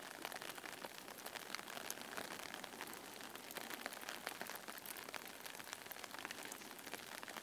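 Light rain falling in a forest, heard faintly as a steady hiss full of many small, irregular drop ticks.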